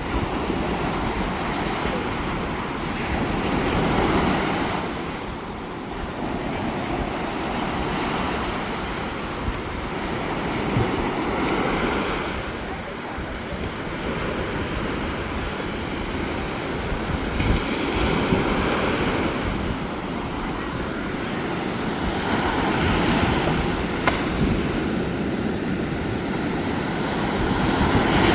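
Sea waves breaking on a beach, the surf swelling and falling away every few seconds, with wind buffeting the microphone.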